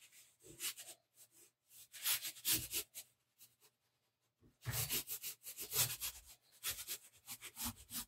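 Chalk pastel rubbed across paper in quick repeated strokes. The strokes come in bursts, with a pause of about a second and a half in the middle.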